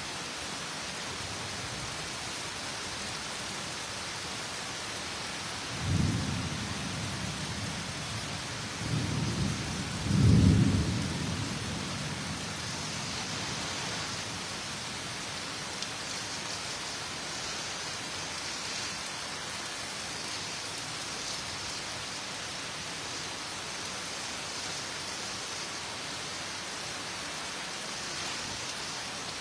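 Steady heavy rain with thunder rumbling three times: about six seconds in, then twice close together around nine to eleven seconds, the last the loudest, each dying away over a second or two.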